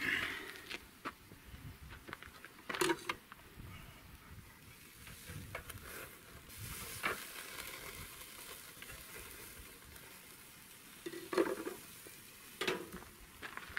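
Thick steak sizzling on a small portable propane grill, with metallic clanks as the grill lid is lifted off and tongs handle the meat, and a few more clanks near the end as the lid goes back on.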